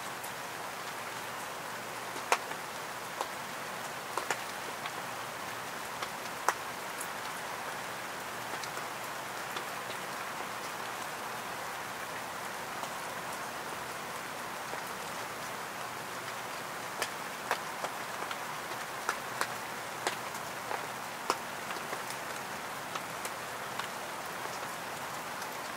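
Steady rain falling on the tent, heard from inside, with single heavier drops landing as sharp, irregular ticks every second or so.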